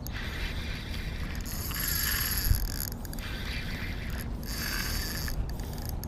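Kastking Kodiak 3000 spinning reel being cranked to retrieve line against a hooked barracuda, its gears whirring in spells broken by brief pauses between turns. A single low bump about halfway through.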